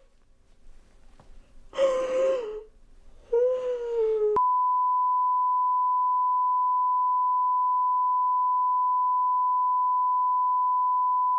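Two short wavering cries, the second sliding slightly down, then about four seconds in a steady pure beep tone starts abruptly and holds at one unchanging pitch: a test tone left on the end of a broadcast tape.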